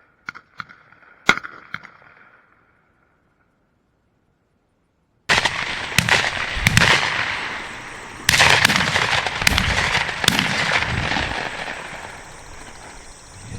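A few faint sharp clicks, then, after a short silent gap, a rapid volley of shotgun shots from several guns firing at doves in quick succession.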